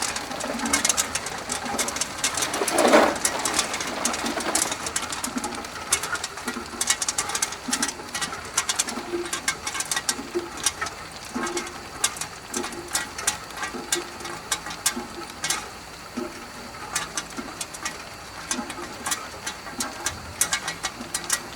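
Tube ice machine harvesting: freshly cut ice tubes clatter and clink as they drop from the ice outlet, a dense run of sharp, irregular clicks and knocks. A faint steady high tone runs underneath.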